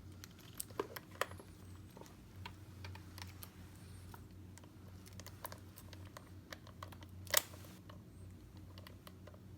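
Scattered light clicks and taps from handling a hard-sided trunk and its strap, with a few quick ones about a second in and a sharper one later on, over a low steady hum.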